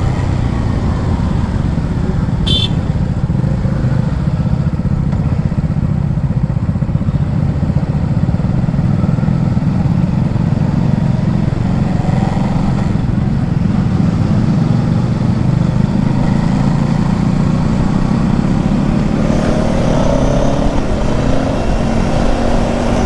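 Kawasaki Ninja 650's parallel-twin engine running steadily while the bike is ridden, with faint rises in pitch about twelve seconds in and again near the end as it revs.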